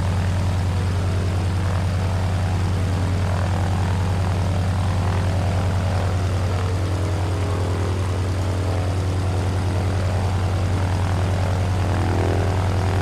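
Helicopter running steadily at idle: a constant low engine drone with the rapid, even chop of the turning rotor.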